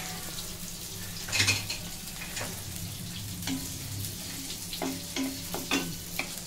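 Wooden spatula stirring and scraping whole spices (fenugreek, cumin, black pepper, cloves, cardamom) as they roast in an aluminium kadai, with a light sizzle and scattered sharp scrapes, over a low steady hum.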